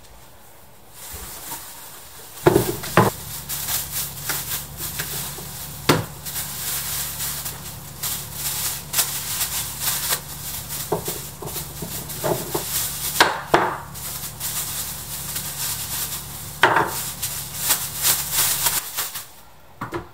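Tissue paper crinkling and rustling as it is crumpled in the hands, with several sharp knocks, over a low steady hum that starts about a second in and stops shortly before the end.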